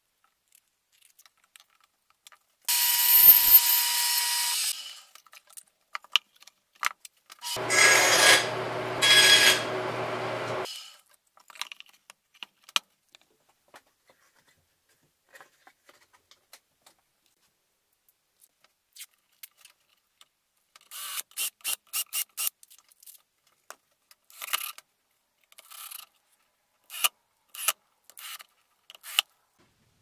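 Workshop sounds: a power tool runs in two short bursts of about two and three seconds, the second with a steady motor hum. Later comes a quick run of small clicks, then scattered clicks and taps.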